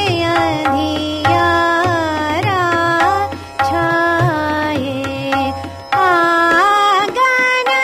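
A vocal composition in Raag Hansdhwani sung to tabla: one voice gliding between long held notes over repeated tabla strokes, with short breaks in the melody about three and a half and six seconds in.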